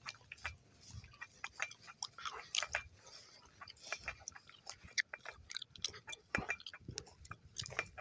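Footsteps through dry grass and leaves: a quiet, irregular run of short clicks and rustles.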